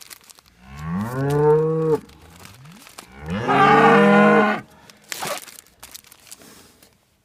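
A calf bawling twice, the second call louder and harsher: distress calls from a calf whose broken leg is being handled and wrapped. A brief rustle follows.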